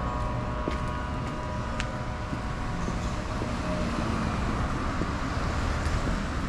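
Steady road traffic noise, passing cars on a city street, with a few faint steady tones over the first few seconds.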